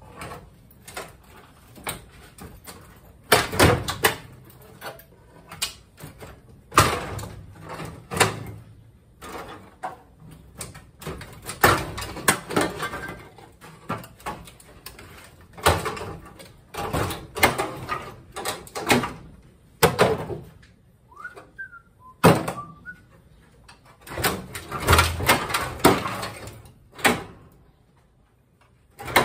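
Rusty sheet-steel floor pan of a 1968 Pontiac Firebird being pried and worked loose with hand tools: irregular metal scraping, creaking and knocks, with a short squeal about 21 seconds in.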